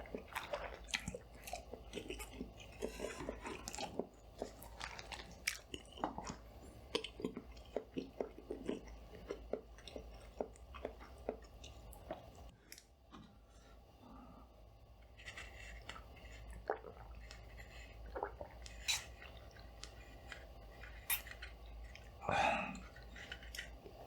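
Close-miked chewing and mouth sounds: many short, sharp clicks, quieter for a few seconds in the middle, with one brief louder sound near the end.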